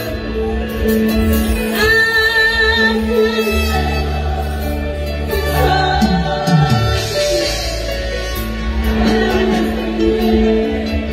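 Live gospel worship music: a woman singing into a microphone over an amplified band with electric bass and keyboard, holding long notes over steady low bass tones.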